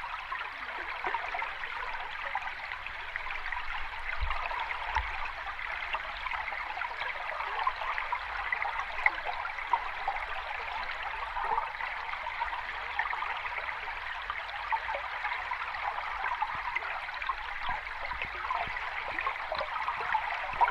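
A small waterfall or cascade running steadily over rocks, a continuous splashing and babbling of water with no change.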